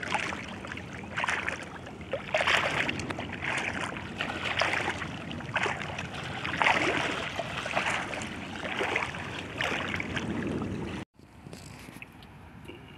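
Shallow water splashing and sloshing in irregular bursts as a person moves through it and works their hands in it. The sound cuts off abruptly about eleven seconds in, leaving only a faint background.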